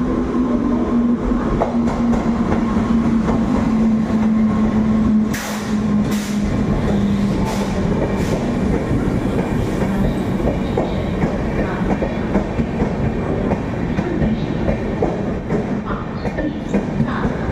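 Train running along the platform, with a steady, slightly falling hum and then a series of sharp clanks of wheels over rail joints in the middle, over a continuous rumble.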